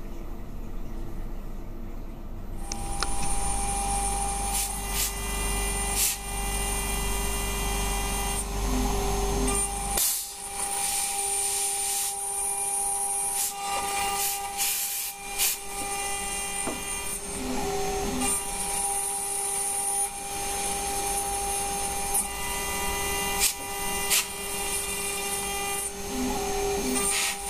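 Water-cooled 2.2 kW spindle of a CNC 6040 mill whining steadily while its end mill cuts slots in metal, with a rough scraping cutting noise and scattered sharp clicks. The sound changes about two and a half seconds in, and the whine dips briefly in pitch a few times.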